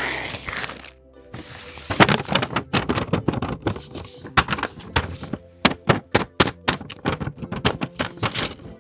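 Background music with a fast, irregular run of sharp taps and clicks starting about two seconds in: paper blind bags being handled and tapped.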